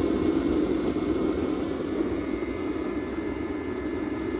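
Homemade waste-oil burner stove burning with a blue flame: a steady, low rushing of the flame.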